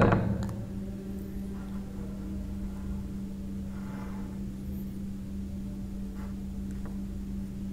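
Quiet room tone dominated by a steady low hum, with a faint brief rustle about four seconds in.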